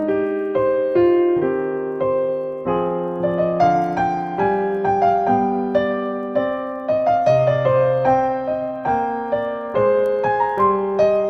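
Background piano music: a melody of single notes over chords.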